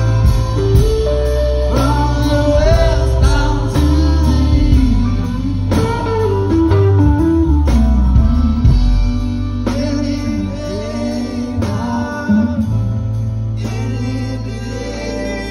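Live band playing a slow song on acoustic guitar, upright bass and drums, with male voices singing through the PA.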